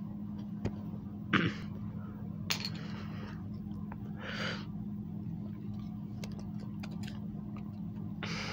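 Fingers handling a plush toy's cardboard hang tag: light clicks, taps and a few short rustles over a steady low hum.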